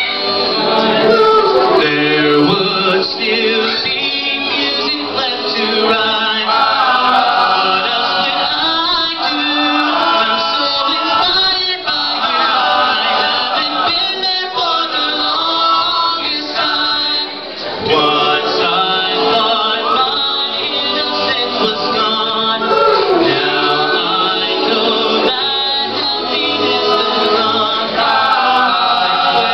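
Male a cappella vocal group singing, a solo voice over close harmony from the backing singers.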